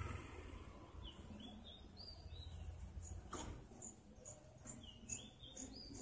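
Small birds chirping faintly at a nest: a few high curving notes in the first half, then a run of short high chirps about two or three a second. There is one short knock just past halfway.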